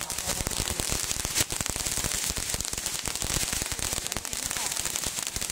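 Firecrackers going off in a dense, continuous crackle of rapid pops, with one louder pop about a second and a half in.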